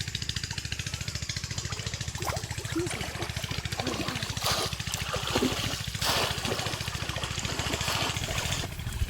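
A small engine running steadily, with bursts of water splashing and sloshing in the middle.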